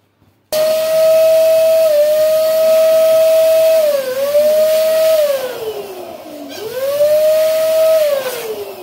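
Electric balloon pump running with a steady whine as it inflates a latex balloon. It starts suddenly about half a second in, its pitch sags and recovers twice, then falls away as the motor winds down near the end.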